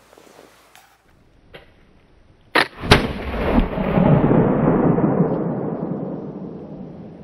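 An 18th-century large-calibre flintlock rifle firing. A sharp crack from the lock and priming pan is followed about a third of a second later by the louder main shot, then a long rolling echo that fades over about four seconds.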